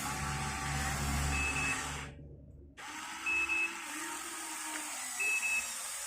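Excavator engine running with a low rumble, and a short high beep repeating about every two seconds. The sound cuts out completely for under a second just after two seconds in.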